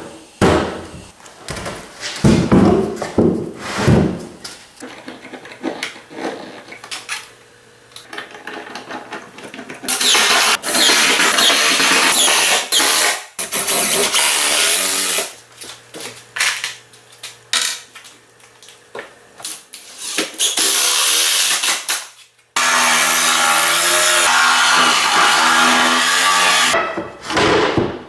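Woodworking power tool running in three loud bursts of several seconds each, cutting or boring into wood, with a motor hum in the gaps. Knocks and handling sounds come first.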